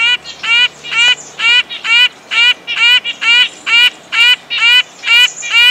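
Red-breasted nuthatch calling: a steady series of short, evenly spaced notes, about two a second.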